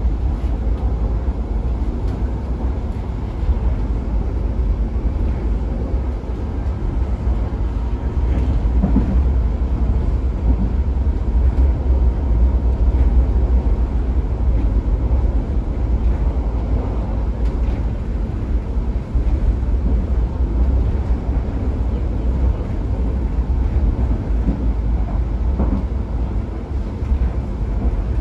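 Ride noise inside a PESA EN97 electric multiple unit running at speed: a steady low rumble of wheels on rail and the running gear.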